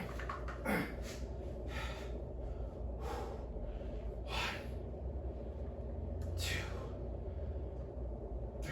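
A man breathing hard through a set of incline dumbbell presses, with five sharp, forceful exhales, roughly one per rep, over a steady low hum.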